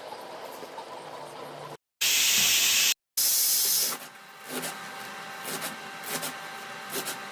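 Food frying in a hot pan: two loud bursts of sizzling of about a second each, broken by edits, then a quieter sizzle with a few sharp clicks.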